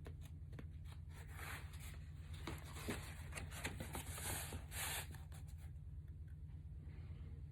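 Sharpie felt-tip marker drawn across paper in a series of short strokes, busiest a few seconds in and thinning out after about five seconds, over a steady low hum.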